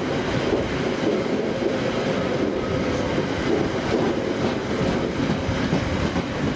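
Train passing close by, its wheels rumbling and clattering steadily on the rails.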